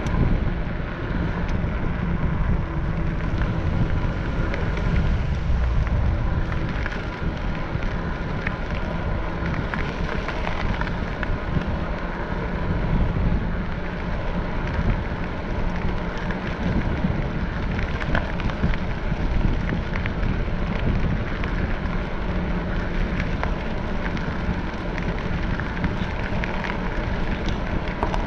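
Steady wind buffeting on the microphone of a camera moving along a road, a heavy low rumble with a faint crackle through it.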